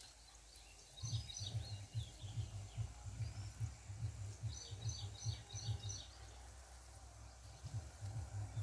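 Small birds chirping in two short bursts, about a second in and again around five seconds in, over irregular low thuds as a blade is worked into damp soil.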